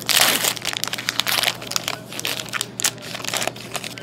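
Pack wrapper of a hockey trading-card pack torn open, with a loud rip at the start, then crinkled and rustled as the cards are pulled out, tailing off near the end.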